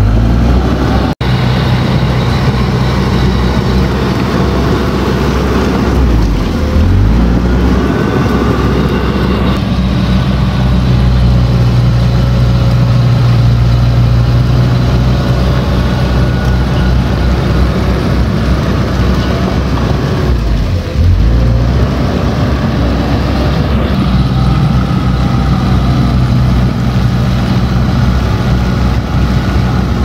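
Komatsu D31P crawler bulldozer's diesel engine running steadily, its pitch shifting twice as the engine speed changes, with a momentary dropout about a second in.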